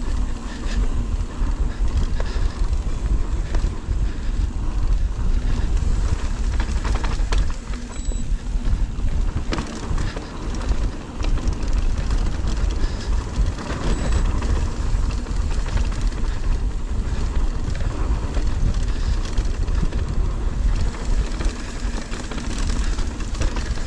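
2023 Ibis Ripmo AF mountain bike on Maxxis Assegai tyres riding fast down a dirt trail: tyres running over dirt and the bike knocking and rattling over bumps, under heavy wind noise on the microphone.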